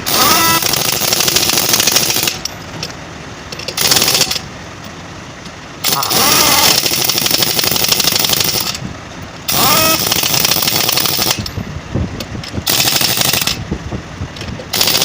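Pneumatic impact wrench running on a truck wheel's nuts in several bursts of a second or two, each starting with a short rising whine and then a rapid hammering rattle.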